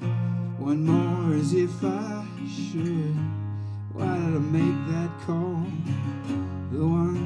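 A man singing an acoustic blues song while accompanying himself on acoustic guitar.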